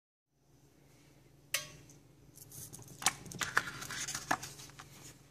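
Handling noise of a hand picking up a stiff glossy photo print: a sharp click about one and a half seconds in, then a couple of seconds of rustling with a few light knocks, over a steady low hum.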